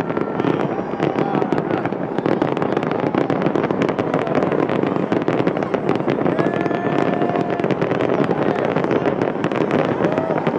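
Aerial fireworks display at full barrage: a continuous, rapid run of shell bursts and crackling reports with no break.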